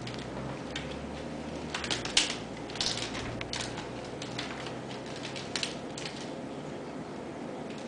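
Ragdoll kittens' claws and paws scrabbling and scratching on a wicker basket and a hardwood floor during play: irregular clicks and scratches, loudest in a cluster a couple of seconds in.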